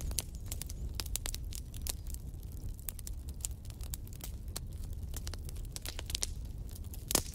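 Wood campfire crackling, with irregular sharp pops and snaps several times a second and one loud snap near the end, over a steady low rumble.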